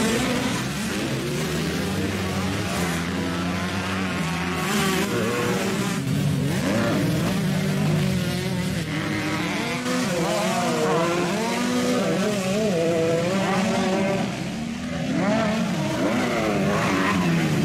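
Several motocross bike engines revving hard and backing off, their pitch rising and falling again and again as the bikes take a jump, with a short lull a little before the end.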